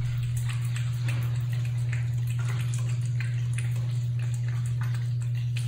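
A cat eating soft wet pâté from a plastic plate: irregular small wet clicks of licking and chewing, over a steady low hum.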